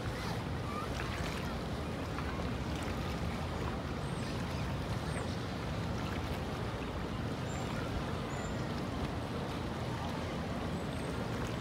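Steady river ambience: a low boat-engine hum over the wash of water, with a few faint high chirps.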